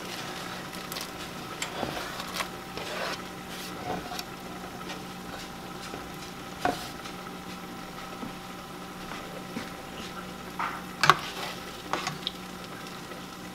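Chicken broth boiling in a stainless steel pot, with shredded chicken being scraped off a wooden cutting board into it, over a faint steady hum. Near the end a metal ladle stirs the pot, knocking sharply against its side a few times.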